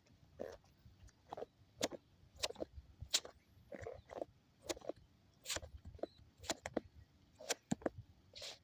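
Jack Russell terrier squeezing and chewing a ball in its jaws, making short, sharp, irregular sounds about one or two a second.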